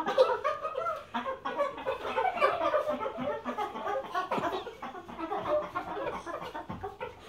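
Several voices chanting "parkour" over and over in a fast, choppy patter, fading toward the end.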